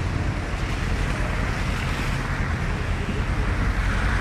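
Steady rushing noise with a strong low rumble, the sound of wind buffeting a body-worn action camera's microphone, over street ambience on wet pavement.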